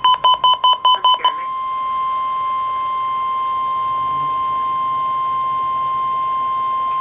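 Rapid electronic beeping near 1 kHz, about eight beeps a second, stopping about a second in. Then the steady 1050 Hz NOAA Weather Radio warning alarm tone sounds as a single held pitch, sent as a weekly test of the warning alarm.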